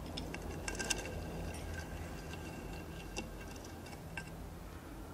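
Teaspoon clinking against a small glass tea glass while stirring tea: a run of light, irregular clinks, each leaving a faint glassy ring, the loudest about a second in and again about three seconds in.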